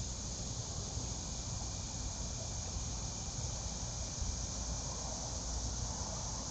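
Steady outdoor insect chorus, heard as an even high hiss over a low background rumble, with a faint thin steady tone fading out near the end.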